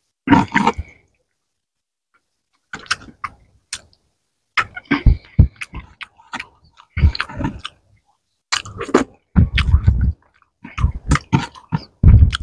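Wet, close-miked eating sounds: fingers squishing rice into fish gravy, plus chewing and lip-smacking, in irregular short bursts with brief silences between.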